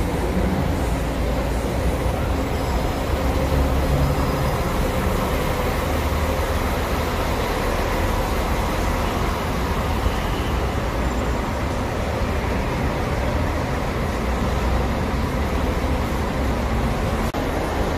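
A bus running: a steady low rumble of engine and road noise, with no change in pitch.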